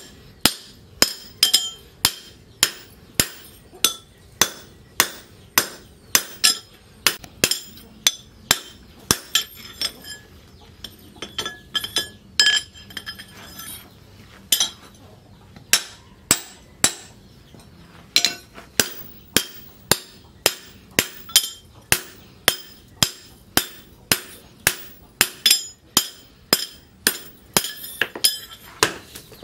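Hand hammer striking a steel axe head held in tongs on a steel post anvil: steady ringing blows about two a second, with a stretch of lighter, uneven taps around the middle before the full blows resume.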